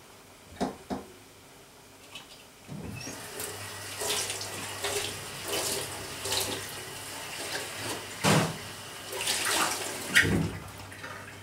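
Kitchen tap running into a stainless steel sink, starting about three seconds in, while a stainless steel lid and bowl are rinsed under it, with a few sharp metal clanks.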